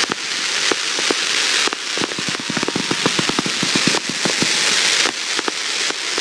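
Aerial fireworks crackling: a dense, continuous patter of many small pops over a fizzing hiss from glittering crackle stars and rising tails.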